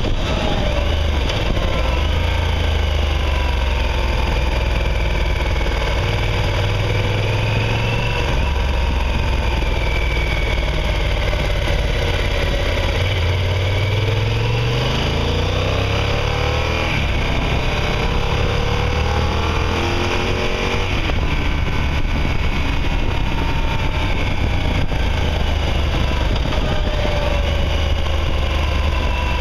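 Motorcycle engine under way, its pitch rising as it accelerates and dropping back at gear changes several times, over steady wind and road noise.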